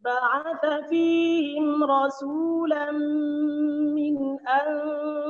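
A man's voice chanting Qur'an recitation in the melodic tajweed style, holding long, drawn-out notes that bend in pitch at their ends, with a brief pause for breath about four seconds in.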